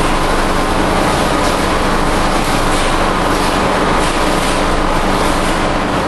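Steady factory noise: a continuous machine hum under a rushing hiss, unbroken and even in level.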